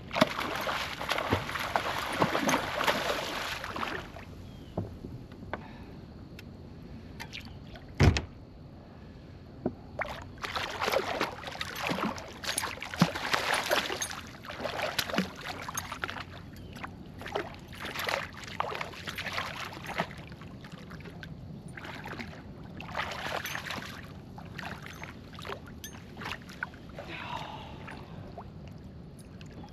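A hooked fish thrashing and splashing at the surface beside a kayak, in repeated bursts of splashing, with one sharp knock about eight seconds in.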